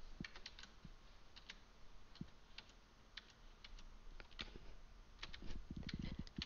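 Faint, irregular clicks and taps of a computer keyboard and mouse being used to switch windows, with a quicker run of soft taps near the end.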